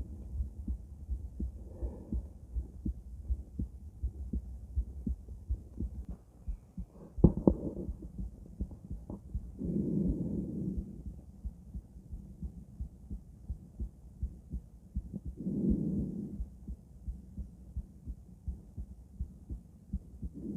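Human heartbeat heard through a stethoscope chestpiece, a regular series of low lub-dub thuds. A few longer soft rushing sounds come in between, and there is one sharp knock about seven seconds in.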